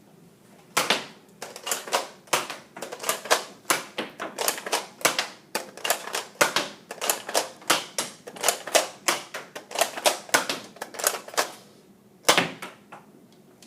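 Toy Nerf blaster firing in quick succession: a rapid run of sharp plastic clicks, about three a second, for about ten seconds, then one more shot near the end.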